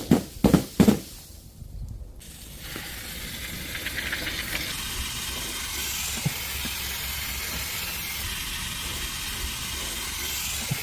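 A few quick knocks, then a steady hiss that starts about two and a half seconds in and holds.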